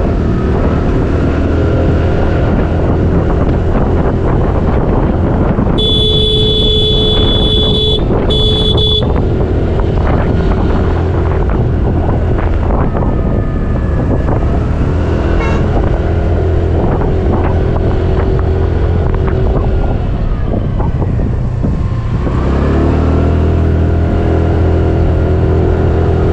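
TVS Jupiter 125 scooter's single-cylinder engine running steadily on the move, with wind and road noise. About six seconds in a horn sounds, one long blast and then a short one. Near the end the engine note climbs as the scooter speeds up.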